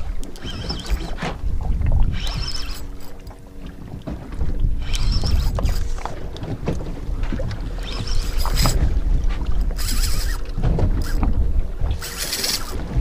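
Wind buffeting the microphone on an open boat at sea, with waves splashing against the hull every couple of seconds and a faint steady hum underneath.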